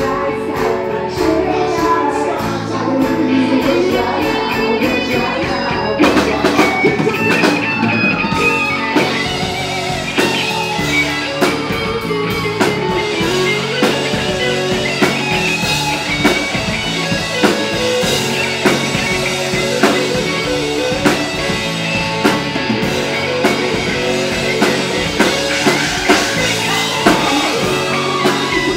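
Live rock band playing: a woman singing over drums and a hollow-body electric guitar, with the guitar and drums carrying on after the first few seconds.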